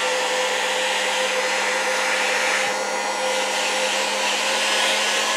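Electric heat gun running steadily, an airy blower rush with a steady motor hum, shrinking heat-shrink tubing onto wires.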